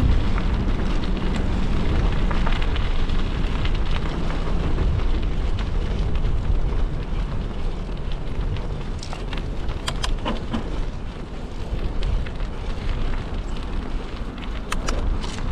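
Wind buffeting a GoPro action camera's microphone as a steady, heavy rumbling rush, with a few scattered clicks.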